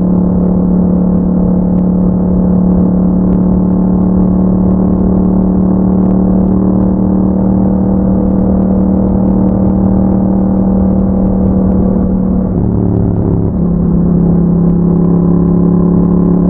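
Yamaha MT-07's parallel-twin engine running through an Akrapovic exhaust with a dB killer, holding a steady note while riding. About thirteen seconds in the note breaks briefly and settles at a slightly lower pitch.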